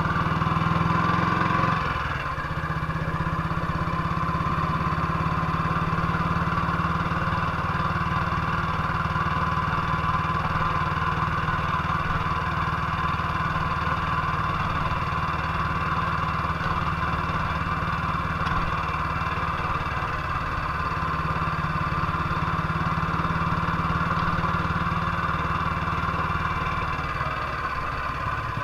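1958 BSA C12's single-cylinder four-stroke engine running steadily and evenly, with no misfire, after the misfire fix. Its note changes and drops a little about two seconds in, then holds steady.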